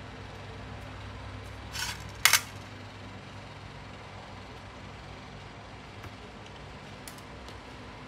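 Small brass clock-movement parts clinking into a stainless steel bowl, a short rattle and then a sharp double clink a couple of seconds in, with a few faint ticks of handling later. A steady low hum lies underneath.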